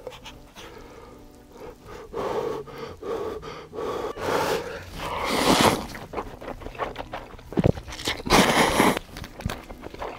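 A person slurping and chewing instant cup noodles in broth, in several noisy slurps, the longest about halfway through and another near the end.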